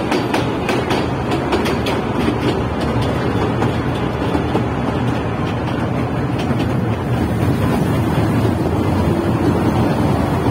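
Kurobe Gorge Railway narrow-gauge trolley train running, heard from inside an open-sided passenger car: a steady rumble of wheels on rail, with a run of clicks over the first few seconds.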